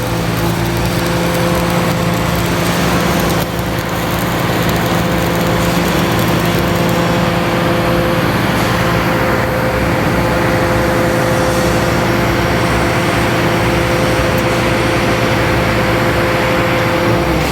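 Stick (SMAW) welding arc burning steadily on a 3.2 mm electrode, a continuous loud crackle and hiss with a steady hum underneath. The arc briefly falters about three and a half seconds in and dies away at the very end as the bead is finished.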